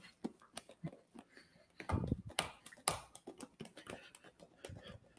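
A container of cream shaken hard by hand to churn butter, giving faint, irregular knocks and thuds, the loudest about two to three seconds in; the cream has almost turned to butter.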